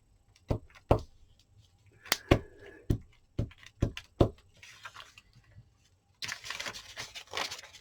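Card and craft tools being handled on a worktable: about eight sharp taps and clicks as things are picked up and set down, then a second and a half of paper rustling near the end.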